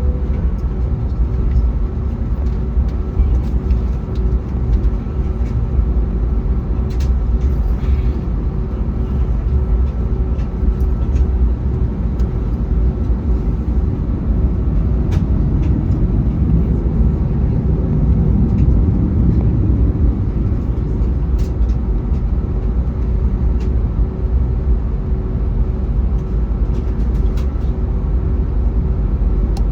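Steady cabin rumble of an Airbus A321neo with its Pratt & Whitney geared turbofans at low, unchanging power, a steady hum running through it and occasional light cabin rattles.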